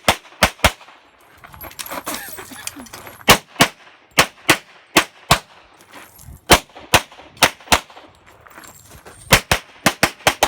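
Handgun shots fired in a competition stage, mostly in quick pairs about a third of a second apart, with pauses of one to two seconds between pairs and a fast run of shots near the end.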